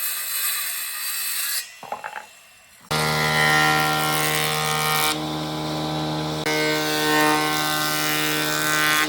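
Woodworking tools at work. First comes a short stretch of hissy sawing noise, then a brief pause with a few knocks. After that an electric power tool's motor runs steadily with a strong hum and a whine above it, changing abruptly a couple of times.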